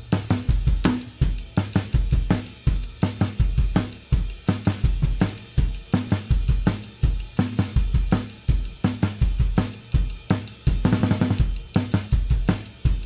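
Music with a driving drum-kit beat: kick drum, snare and hi-hat cymbals in a steady rhythm.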